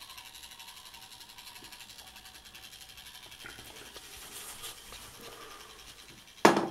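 Clockwork motor of an Ives tinplate toy motor boat running with a steady, fast whirr as it drives the propeller through the water. A sharp, loud knock comes near the end.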